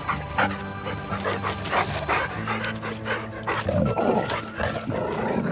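A dog barking and panting in play, in many short, repeated sounds over background music with held tones.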